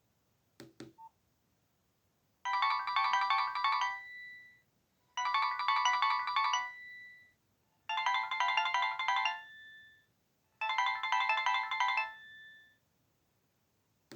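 Nokia 1680 classic's built-in ringtone playing through its loudspeaker: a quick run of electronic notes ending on a held note, repeated four times about every three seconds. A short click comes just before the first run.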